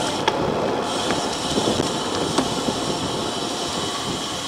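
Steady rushing wind and tyre noise from a road bike ridden at race speed, heard on a camera carried on the bike or rider, with a few sharp clicks.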